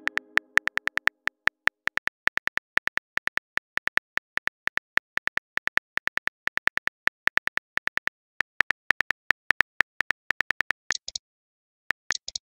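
Phone keyboard key-click sound effects from a texting-story app, a fast even run of short clicks as a message is typed letter by letter. Near the end the clicks stop and there are two brief high hissy sounds.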